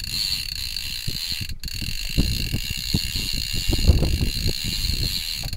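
Baitcasting reel being cranked against a hooked fish, its gears giving a rapid, uneven clicking as line is wound in. A steady high-pitched hum sounds beneath.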